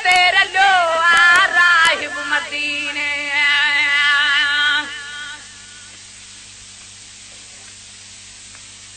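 A solo voice singing a Sindhi devotional qaseeda: a short phrase of wavering melody, then a long held note with vibrato that fades out about five seconds in. After that there is a pause with only a faint steady hum and hiss.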